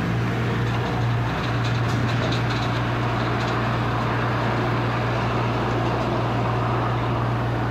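Semi truck's diesel engine running: a steady low drone over an even rumble that holds at the same level throughout.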